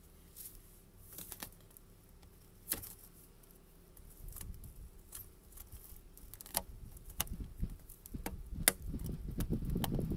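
Handling sounds from working on a plastic RV sewer hose fitting: scattered light clicks and taps, with low rubbing and scraping noise that grows louder near the end.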